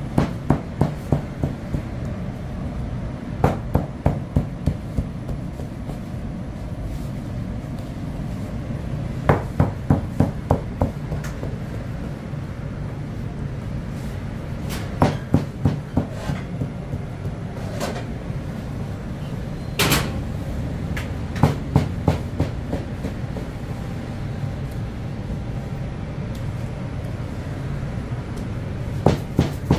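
Bakery equipment running with a steady low rumble. Every few seconds comes a group of five or six quick, sharp knocks, and one longer clatter about two-thirds of the way through.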